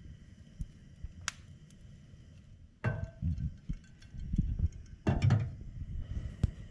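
Kitchenware being handled around a frying pan on a gas stove: a few light ticks, then two heavier knocks with a short clatter about two seconds apart, the second the loudest.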